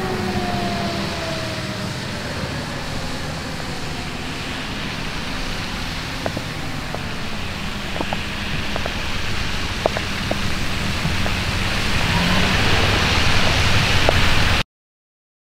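Traffic on a wet road: a steady rumble and hiss of tyres on wet pavement. A fire engine's siren falls in pitch and fades away in the first second or two. The tyre hiss swells near the end, then the sound cuts off suddenly.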